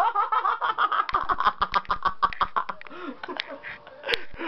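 Young men laughing hard in rapid, breathy bursts, tailing off after about two and a half seconds, with a sharp click near the end.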